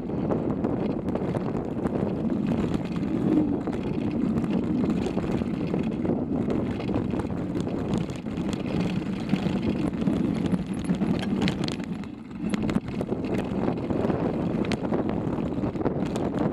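Mountain bike descending a loose gravel trail, heard from a camera mounted on the bike: knobby tyres rolling over stones with a constant rattle of clicks and knocks from the bike, and wind on the microphone. The noise drops briefly about twelve seconds in.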